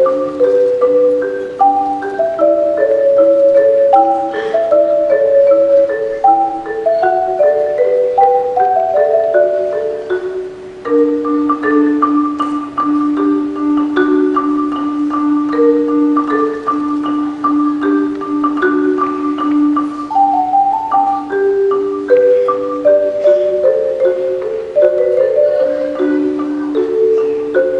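Marimba music: struck wooden bars playing a melody in several parts at once, with a stretch of steady repeated low notes under a held high note in the middle.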